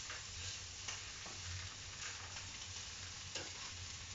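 Meat frying in oil in a pan: a faint, steady sizzle with small crackles.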